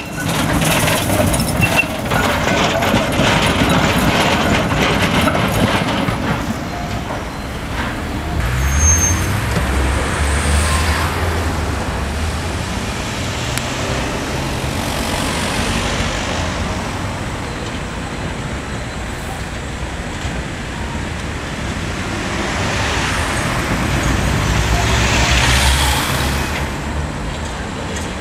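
City street traffic with trams passing. A tram rolls past at the start, a low engine rumble rises about nine seconds in, and a second tram approaches and passes near the end.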